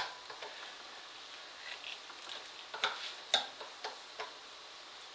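A big screwdriver clicking and scraping against metal inside a piston pump as it is twisted to unthread the piston: scattered sharp ticks, the loudest a few about three seconds in.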